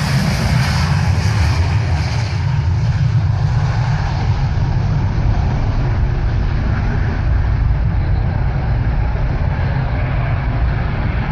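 Boeing 737 jet engines at takeoff thrust, heard from outside: a loud, steady low rumble with no letup.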